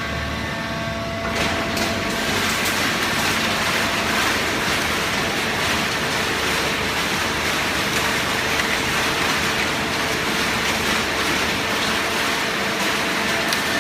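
Top-load cardboard baler machinery running: a steady rushing noise with a faint hum, which comes up about a second in and then holds level.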